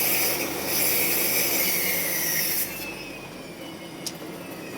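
Woodworking moulding machine cutting wood: a loud hissing cut over a steady motor hum, which stops suddenly under three seconds in, leaving the machine running more quietly.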